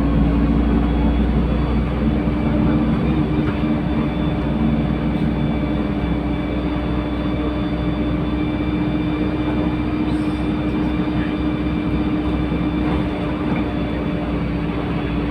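LiAZ-5292.67 city bus under way, heard from inside: steady engine and road rumble with a constant drone held through.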